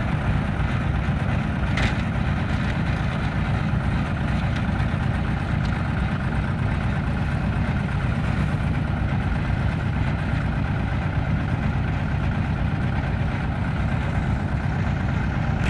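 Kubota combine harvester's diesel engine running steadily.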